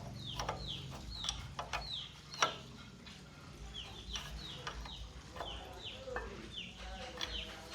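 Birds chirping, a string of short falling calls, with sharp metallic clicks and clinks of hand tools on engine parts.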